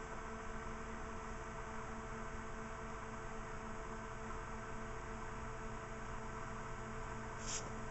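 Steady background hum of several fixed tones under an even hiss, with a short high hiss about seven and a half seconds in.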